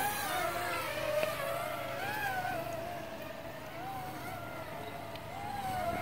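Parrot Swing mini drone's propellers whining as it flies in quadcopter mode, the pitch wavering up and down as the motors work against gusty wind.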